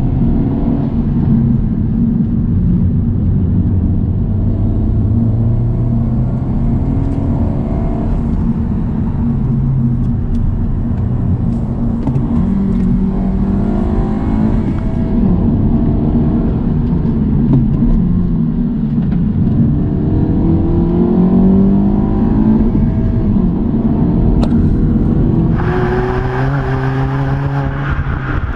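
2022 Honda Civic Si's L15B7 1.5-litre turbocharged four-cylinder engine pulling under acceleration while driving, its pitch climbing and then dropping back several times as it goes up through the gears. Near the end a steady hiss joins the engine sound.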